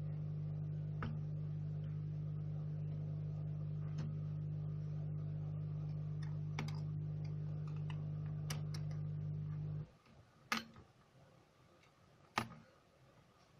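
Scattered sharp plastic clicks as a Samsung Galaxy J2 Core's frame is pried off its touch-and-display assembly, over a steady electrical hum that cuts off abruptly about ten seconds in. The two clearest clicks come after the hum stops.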